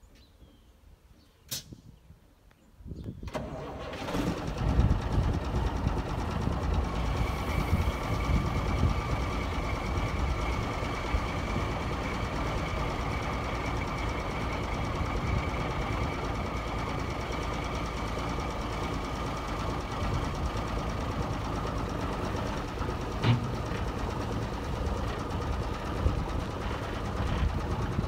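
A click, then the 1989 Freightliner FLD120 dump truck's diesel engine starts about three seconds in and settles into a steady idle with a faint whine over the rumble.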